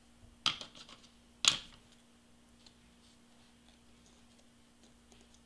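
Cardstock paper flowers being handled and pressed into place: two short crackling rustles about a second apart, then a few faint ticks, over a faint steady hum.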